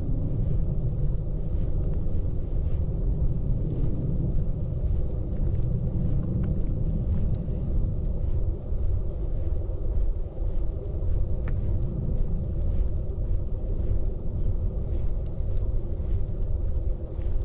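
Steady low rumble of wind on a small action camera's microphone, rising and falling a little, with a few faint high ticks.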